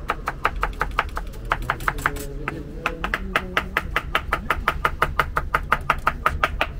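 Large kitchen knife finely chopping parsley on a plastic cutting board: rapid, even knocks of the blade on the board, about six a second, with a short break about two seconds in.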